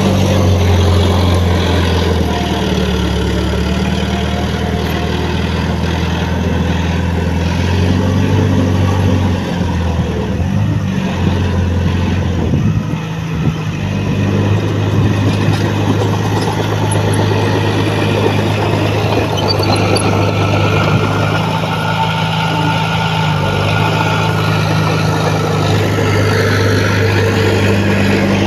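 Diesel engines of heavy earthmoving equipment running steadily, the engine note stepping up and down in pitch a few times around the middle, with a brief dip about 13 seconds in.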